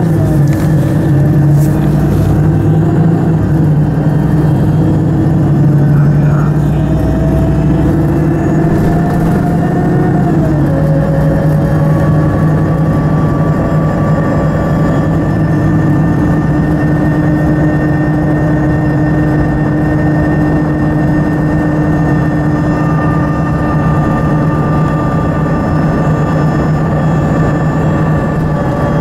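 City bus engine and drivetrain heard from inside the passenger cabin while the bus drives along. The engine pitch climbs and then drops back about ten seconds in, after which it runs steadily at cruising speed.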